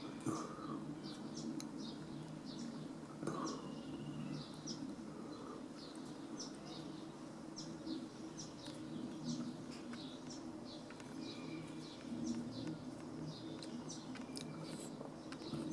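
Small birds chirping repeatedly in short high calls, over a steady low buzz of insects around a flowering bottlebrush.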